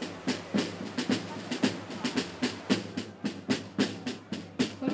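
Procession drums beating a steady, even march rhythm, about four strokes a second, with people's voices underneath.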